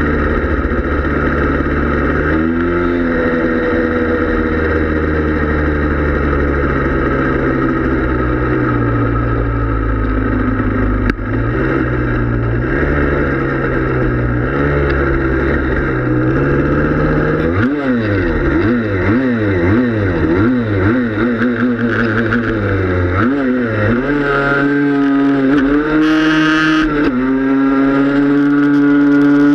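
Yamaha Blaster's two-stroke single-cylinder engine running under way, fairly steady at first. Past the halfway point it revs up and down rapidly several times, then climbs and holds at higher revs near the end.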